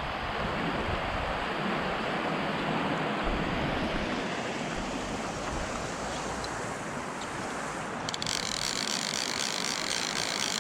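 A river's water rushing steadily. About eight seconds in, a high, fluttering whirr joins it.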